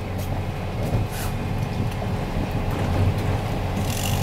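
A boat's engine running steadily with a low hum, under wind and water noise, with a faint knock about a second in.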